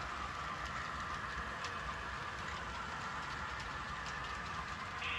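Model train running along the layout track: a steady running noise with faint clicks now and then.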